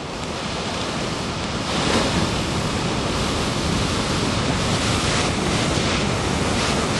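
Ocean surf: a large wave breaking, the rush of water getting louder about two seconds in and then holding steady, with wind on the microphone.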